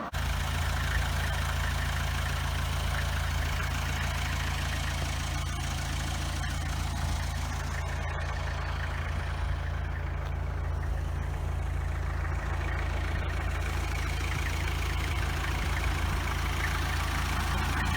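DAF 400 / LDV 400 panel van's engine running steadily, a constant low hum that does not change pitch.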